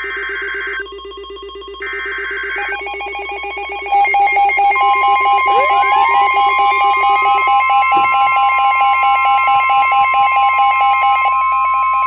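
Emergency Alert System header data bursts: short repeated bursts of a harsh warbling screech. About four seconds in, a louder layered alert takes over. It is a steady weather-radio attention tone with pulsing beeps and upward-gliding, siren-like tones stacked on it, announcing the next alert.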